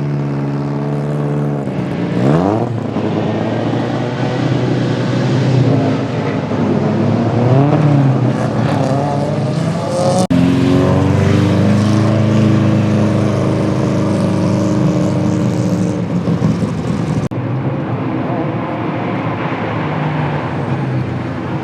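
Vintage race car engines idling and being revved, their pitch sweeping up and falling back several times. The engine sound changes abruptly about halfway through and again near the end.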